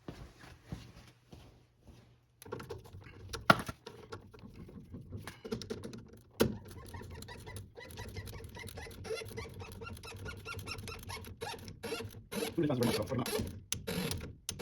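Hand tools being handled: light metallic rattling and small clicks, with two sharp clacks, as a socket is picked out and fitted.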